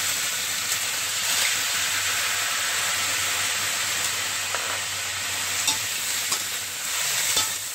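Beef short ribs and onions sizzling in a hot steel wok as a splash of Shaoxing wine goes in. In the second half a metal spatula stirs them, clicking and scraping against the wok a few times.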